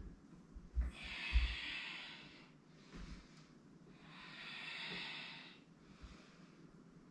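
A person breathing audibly during a yoga flow: two long, hissing breaths, each about a second and a half, with a few soft low thumps in the first three seconds.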